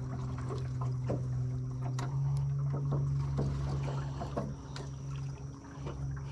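Electric trolling motor on a jon boat humming steadily, getting louder about two seconds in and dropping briefly near the end. A few light knocks and clicks sound over it.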